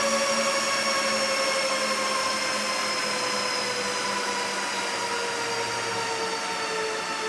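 A machine's whine over a steady rushing noise. Several whine tones slowly fall in pitch and the level eases off a little, like a motor gradually slowing down.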